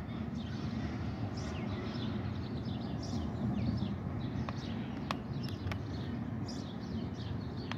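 Small birds chirping over and over above a steady low rumble, with a few sharp clicks.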